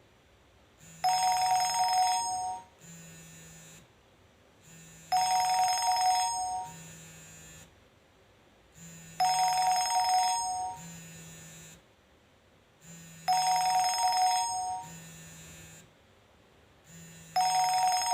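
Nokia E63 ringtone playing: a bell-like telephone ring that repeats about every four seconds. Each ring is a loud two-tone burst of about two seconds followed by a softer part about a second long.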